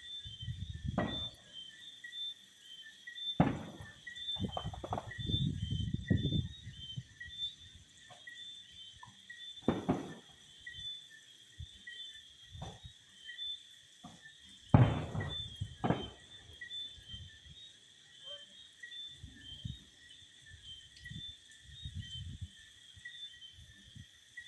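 Fireworks going off at a distance: several sharp bangs and low rumbles scattered through, the loudest about fifteen seconds in. Night insects chirp steadily underneath.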